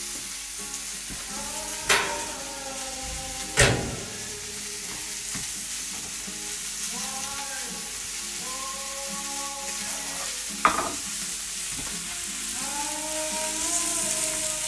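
Chopped vegetables and lamb sizzling steadily in rendered lamb fat in a stainless steel frying pan. A few sharp knocks cut through it, the loudest about three and a half seconds in.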